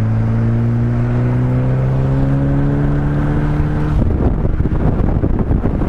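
Westfield kit car's engine pulling under acceleration, its pitch rising slowly and steadily; about four seconds in it is suddenly swamped by heavy wind buffeting on the microphone.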